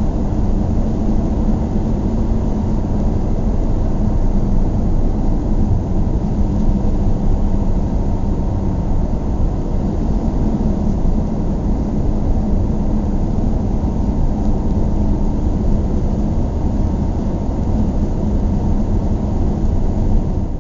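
Steady low rumble of a car driving at an even speed, heard from inside the cabin: engine hum mixed with road and tyre noise.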